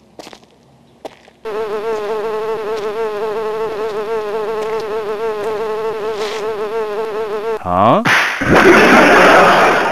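A steady, insect-like buzz with a fast wobble in pitch for about six seconds, followed by a quick falling glide and a loud, noisy burst near the end.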